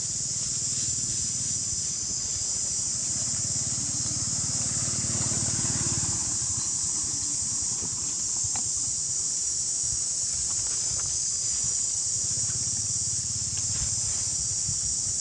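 Steady high-pitched hiss of an insect chorus, unbroken throughout, over a low rumble.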